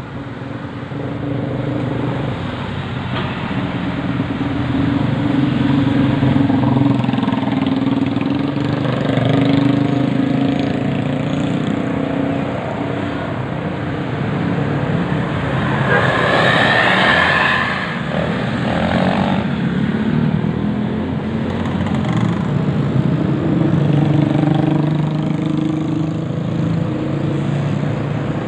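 Road traffic with bus and vehicle engines running and passing steadily. Just past halfway comes a short, louder, higher-pitched sound lasting about a second and a half.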